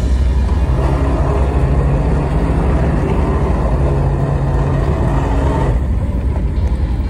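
Fishing boat's engine running with a steady low rumble, its note shifting a few times and easing off about six seconds in.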